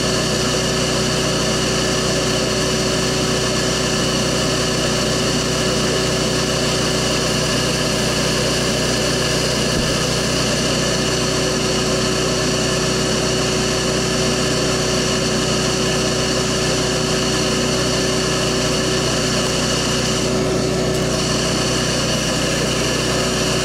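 Bee vacuum's motor running with a steady, unchanging hum.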